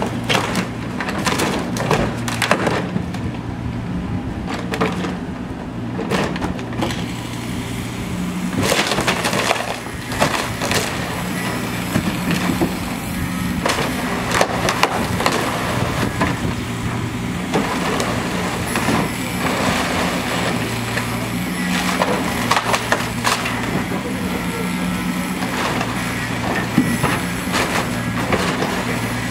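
Diesel engine of a Caterpillar 302.7 mini excavator running steadily while its bucket tears apart a fire-damaged wooden play castle, with repeated cracking and splintering of timber and boards crashing down.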